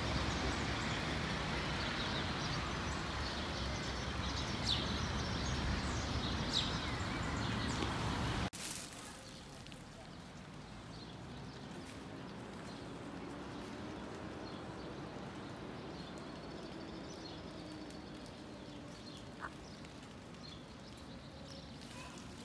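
Steady outdoor background noise with a few short bird chirps. About eight seconds in it drops suddenly to a quieter, even background.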